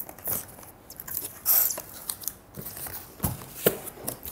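Cardboard box being opened by hand: flaps pulled and rubbing with crackly, crunchy rustling and scraping. A little after three seconds in come two sharper knocks as the box is tipped over onto its side on the table.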